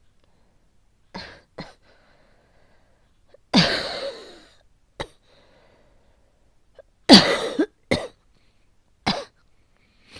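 A woman coughing in a series of separate coughs: a hacking asthma cough that won't stop. Two of the coughs are long and loud, about a third and two-thirds of the way through, and shorter ones fall between them.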